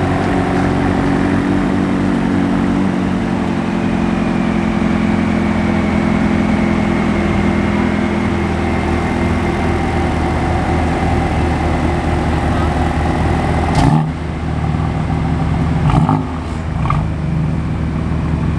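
A car engine idling steadily with a deep, even hum. Sharp knocks sound about 14 seconds in and again about 16 seconds in.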